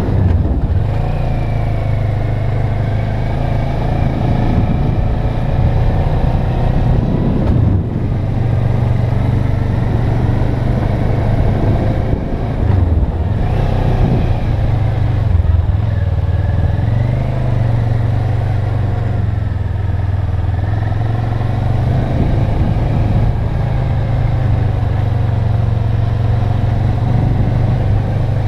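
Motorcycle engine running under way, its note rising and falling through the bends, with two brief dips in the engine sound.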